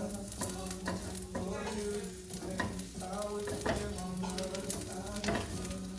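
Chicken fried rice sizzling in a hot pan as it is stirred and tossed, the utensil scraping the pan about twice a second, over a steady low hum.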